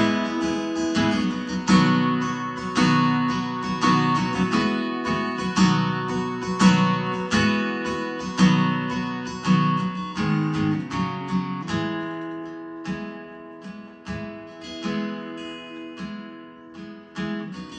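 Acoustic guitar strummed in a steady rhythm, chords ringing, with no voice. The strumming grows softer over the last several seconds.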